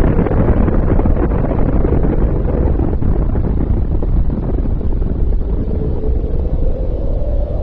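Explosion sound effect: a sudden blast that turns into a long, deep, noisy rumble, slowly dying down, over a steady low tone.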